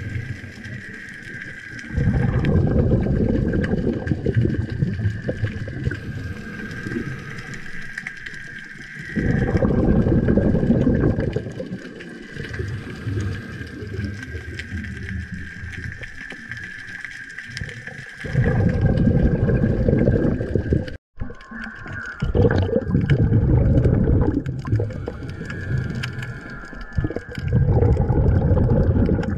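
Underwater recording of a diver's exhaled air bubbling out in five loud, low surges of two to three seconds each, at uneven gaps. A steady faint high whine runs underneath.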